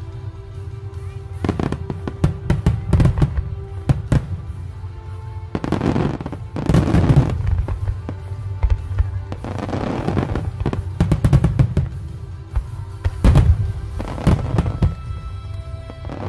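Fireworks display: aerial shells and ground fountains going off in repeated sharp bangs and bursts of crackle, densest about six and ten seconds in, with steady music underneath.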